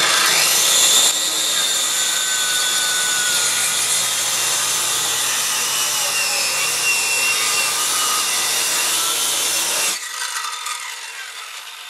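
Electric saw cutting through a wooden board, starting suddenly and running steadily for about ten seconds, then released and winding down over a couple of seconds.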